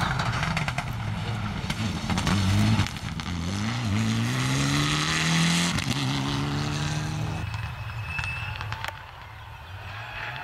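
Mitsubishi Lancer Evolution X rally car's turbocharged four-cylinder engine at full throttle, climbing in pitch with upshifts about three and six seconds in. It fades as the car drives away.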